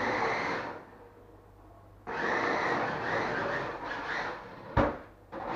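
Toy-grade RC car's small electric motor and gears whirring in on-off bursts of throttle as it drives across a laminate floor: a short burst at the start and a longer one from about two seconds in, then a sharp knock and a fresh burst near the end.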